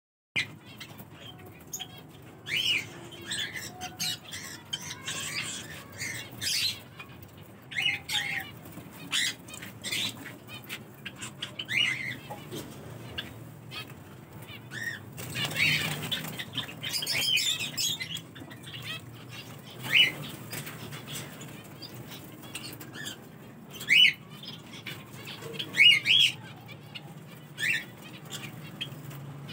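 Caged lovebirds and finches calling with short, sharp chirps every second or two, with a denser stretch of squawky calls about halfway through.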